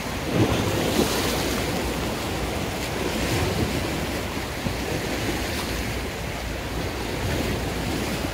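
Choppy sea waves washing and breaking against rocks, a steady rushing surf with a low rumble, with wind buffeting the microphone.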